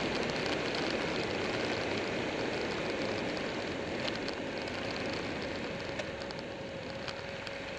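A Buell 1125R motorcycle on the move: wind rushing over the microphone mixed with engine and road noise, easing off gradually as the bike slows. A faint steady tone comes in during the second half.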